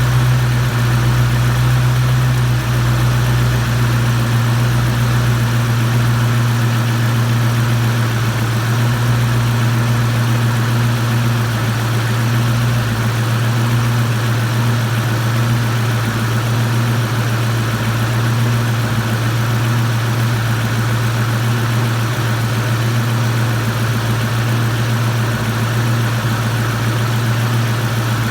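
A boosted Mustang V8 idling steadily while warm, with the ticking that it makes only when warm at idle. The cause is unknown to the owner: oil pressure is good and the lash adjusters, lifters and roller rockers have already been replaced.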